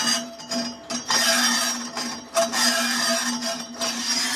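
Lathe machining the inside of a spinning truck brake drum: the cutting tool scrapes and rasps against the metal in uneven spells that break off briefly several times, over the steady hum of the lathe.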